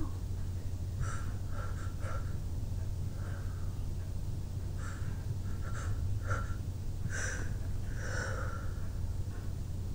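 A person sniffling and breathing hard through a tickled, running nose: a string of short, soft sniffs and snorts, about nine, with no full sneeze.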